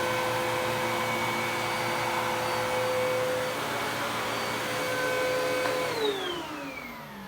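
Dirt Devil PowerMax Pet upright vacuum cleaner running steadily, then switched off about six seconds in, its motor whine falling in pitch as it spins down.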